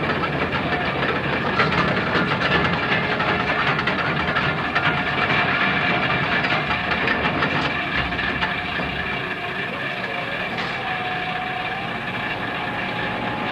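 Heavy salvage-ship machinery such as winch gear running: a steady mechanical din with hiss and a steady whine, easing slightly about nine seconds in.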